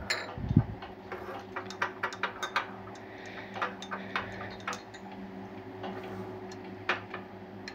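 Plastic spoon tapping and scraping against glass dessert bowls while pressing toasted kunafa shreds level: a string of light, irregular clicks over a steady low hum.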